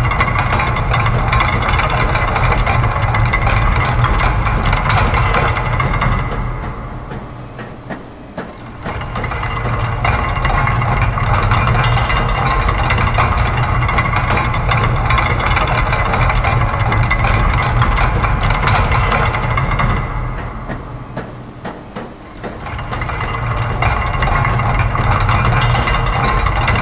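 Dense layered mix of looped factory machine sounds, built from gears, a press, clockwork springs, ratchets and a sewing machine: a steady low hum under constant fine mechanical clatter. It fades down twice, about six seconds in and again about twenty seconds in, then swells back each time.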